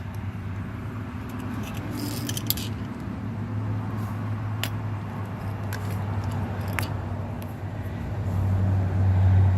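Light metallic clicks and rattles of small car parts and a wiring clip being handled, over a steady low hum that swells near the end.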